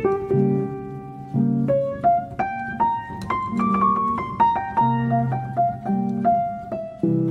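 Background piano music: a melody of single struck notes over sustained low chords at an unhurried pace.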